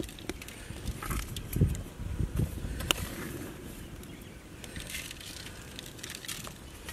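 Crushed black pepper sprinkled by hand over raw marinated chicken legs in a metal pot: scattered light clicks and rustles, with one sharper click about three seconds in.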